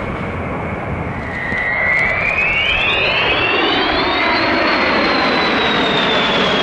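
Jet engines of a B-52 Stratofortress bomber making a low pass overhead: a steady rushing engine noise that grows louder about a second and a half in, while a high turbine whine climbs in pitch and then slowly falls.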